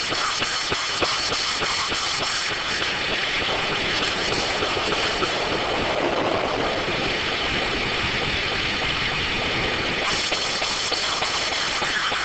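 A D9 circular sawmill running steadily, a dense mechanical noise with fine rapid ticking. The highest part of the sound thins out about two and a half seconds in and comes back near the end.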